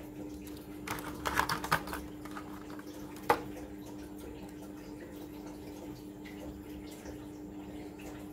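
Clear plastic packaging crinkling in the hands for about a second, then a single sharp click, over a steady low hum.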